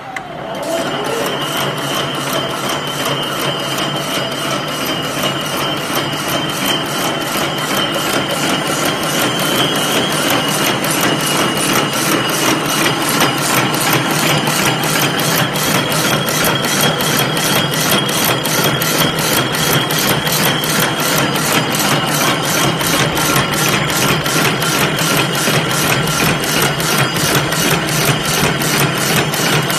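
Double-strand barbed wire machine starting up and running: it spins up in the first second, then keeps up a fast, even mechanical clatter from its gears and barb-twisting head.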